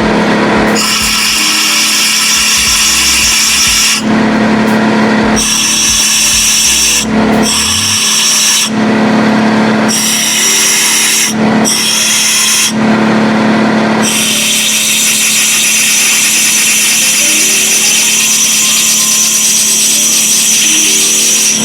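Compressed-air blow gun hissing into the engine block's head-bolt holes in about six blasts, the last one long, blowing out residual coolant to dry the holes. A steady hum runs underneath and is plainest in the breaks between blasts.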